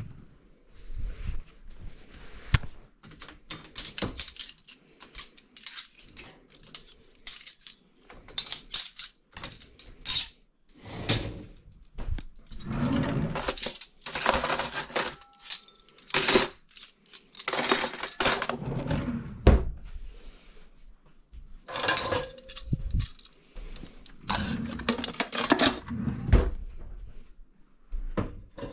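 Kitchen clatter of cutlery, dishes and a pot lid being handled and set down, some into a dishwasher rack: irregular clinks and knocks with a few longer scraping, rattling stretches.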